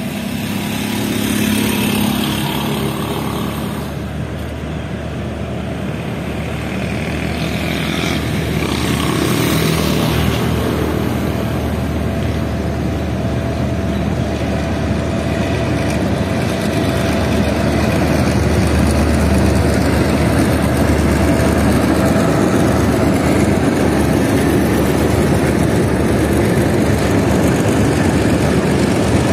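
Diesel-hauled passenger train crossing a steel railway bridge: the locomotive's engine running under the steady rumble of the coaches, growing louder as the train comes nearer.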